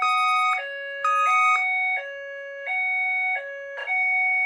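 Fire alarm voice-evacuation speakers sounding the evacuation alert tone: a loud electronic signal that steps back and forth between a lower and a higher pitch about every half to two-thirds of a second. It is the fire signal that the recorded message refers to.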